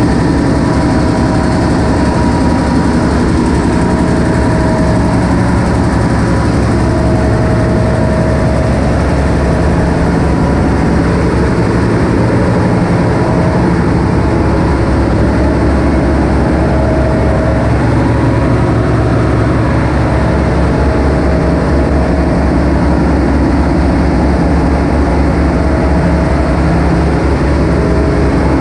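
Ship's engine-room machinery, generator engines among it, running: a loud, steady drone, with a higher hum that fades in and out every few seconds.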